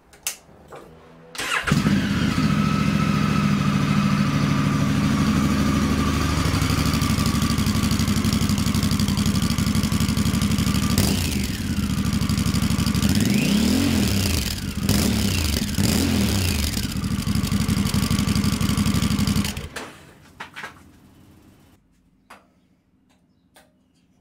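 Honda Africa Twin CRF1100's parallel-twin engine, breathing through a Black Widow slip-on exhaust with the baffle in, starting up about a second and a half in and idling. Around the middle it is revved in a few short blips that rise and fall back to idle. It is switched off a few seconds before the end.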